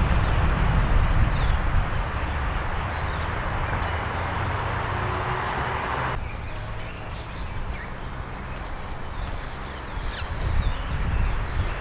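Outdoor ambience of a steady low rumble with birds chirping, a few clearer chirps near the end. The background changes abruptly about six seconds in.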